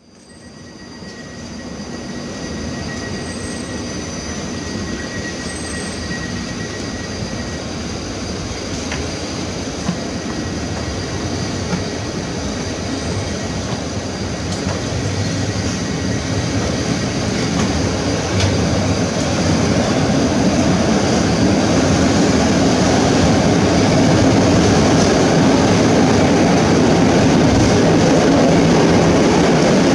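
Steady rumble and rail noise of a passenger train heard from inside a coach as it runs through the underground cross-city tunnel, growing gradually louder as the train gathers speed.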